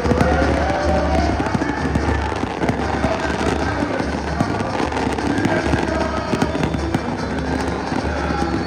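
Samba-enredo played over the parade's sound system: a samba bateria's dense, rapid drum and snare hits over a steady deep surdo pulse, with singing carrying the melody.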